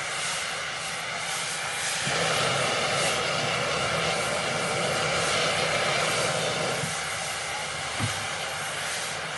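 Steam locomotive standing, giving off a steady rushing hiss that grows louder about two seconds in and eases off near the end, with one short knock about eight seconds in.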